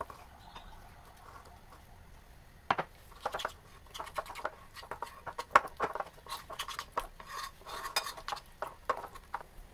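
Metal spoon stirring a thick flour batter in a bowl. It scrapes quietly at first, then from about three seconds in it clinks and knocks rapidly against the bowl as the batter is beaten.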